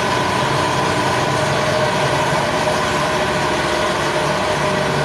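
A heavy engine running steadily at idle, with a level mid-pitched whine over a low rumble.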